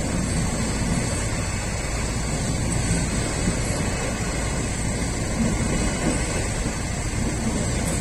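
Freight train's container wagons passing over a level crossing: a steady noise of wheels running on the rails.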